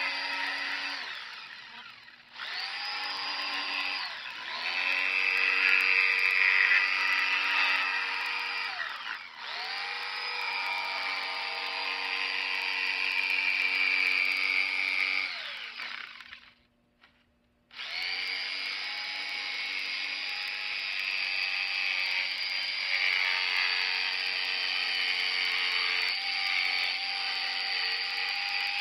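Jigsaw cutting lengthwise along a PVC pipe, its motor and blade running with a steady whine. The trigger is let off and squeezed again several times, the motor spinning up at each restart, with one full stop about two-thirds of the way through.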